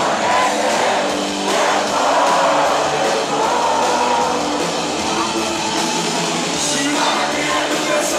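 Live band playing a rock-style gospel song, with a sung vocal line over guitars and drums, loud and unbroken.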